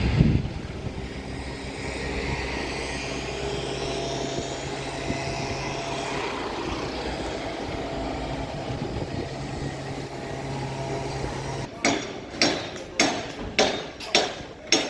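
Steady engine hum from motor traffic or site machinery. Near the end come about six heavy knocks, evenly spaced about half a second apart.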